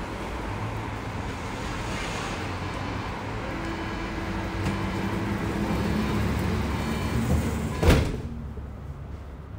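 Bombardier Flexity Berlin tram running, heard from on board, with a steady low motor hum under the rolling noise. Near the end comes a single sharp knock, and the running noise then drops away.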